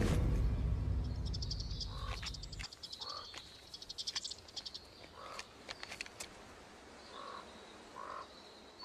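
Short, harsh animal calls repeated every second or two, with trains of rapid high clicking in the first half. A low rumble fades out under them in the first three seconds.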